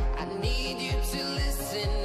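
Background pop music with a steady kick-drum beat, a little over two beats a second, under a sustained melody.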